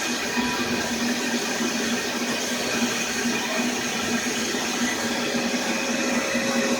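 Vacuum cleaner running steadily, sucking the air out of a storage bag packed with stuffed toys.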